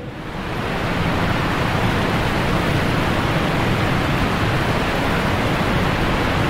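Steady rushing of water, building over the first second and then holding even.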